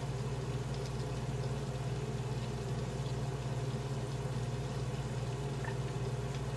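Bacon frying slowly in a pan on low heat, a faint, even sizzle without popping, over a steady low hum.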